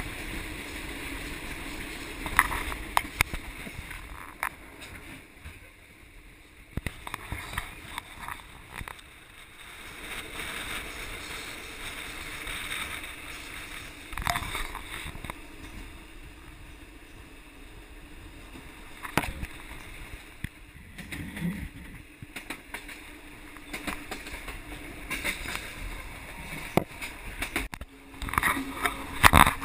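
Passenger train running along the track: a steady rumble with scattered sharp knocks and clatter, which come thicker and louder near the end.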